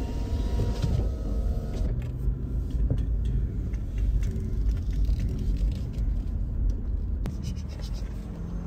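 Steady low rumble inside the cabin of a 24-year-old Toyota 4Runner on the move: engine and road noise, with a few faint clicks.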